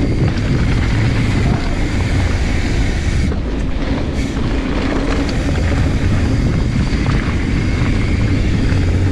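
Mountain bike descending a dirt trail: a steady rush of wind on the microphone mixed with the tyres rolling and the bike rattling over rough ground.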